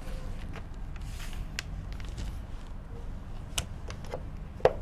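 Light rustling and a few sharp taps from paper being handled and pressed against a whiteboard, over a steady low room hum.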